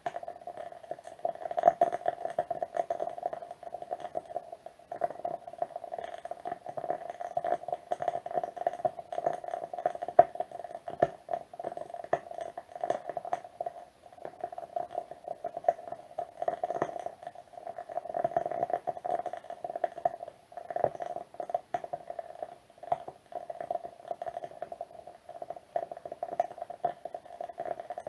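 Wood wick candle burning with a continuous soft crackle of many small pops, a few sharper pops standing out, one loudest about ten seconds in.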